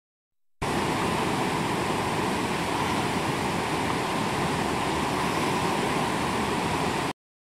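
Rushing whitewater of a river's standing waves, a steady wash of water noise that starts suddenly about half a second in and cuts off abruptly near the end.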